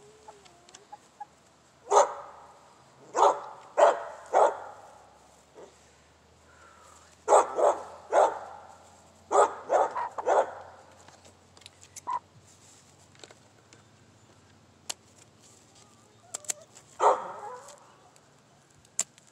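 Chickens squawking in loud, short calls, mostly in runs of three about half a second apart, with a few sharp clicks between them.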